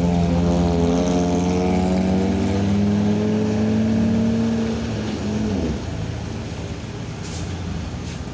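A vehicle engine running hard, its pitch creeping slowly higher for about five seconds, then dropping away and fading, leaving a quieter steady rumble.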